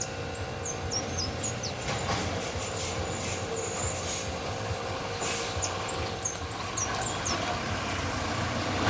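Street traffic: a vehicle's engine running with a steady hum that fades out about two-thirds of the way through, with a series of short, high falling chirps and a few light clicks over it.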